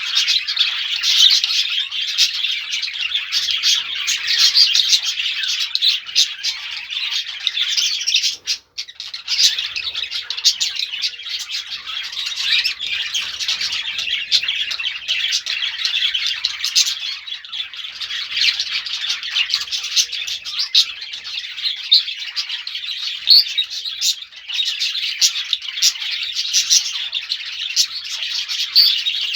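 Small birds chirping together in a dense, continuous chatter of short high calls, with a brief dip about a third of the way through.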